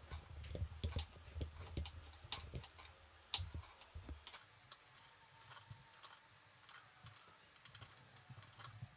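Faint, irregular taps of a kitchen knife on a wooden cutting board as strawberries are chopped into small pieces, with a low hum underneath for the first few seconds.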